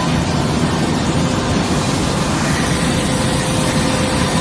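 Steady loud running noise of a QUICK UA-481 woodworking CNC router at work, with a faint steady whine.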